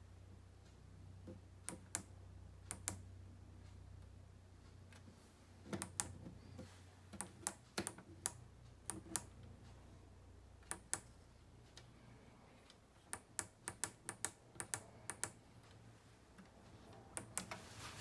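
Push buttons on a Miele G5500 SCI dishwasher's control panel clicking as they are pressed and released, often in quick pairs and clusters, to step through wash programmes and the delay-start setting. A low hum stops about five seconds in.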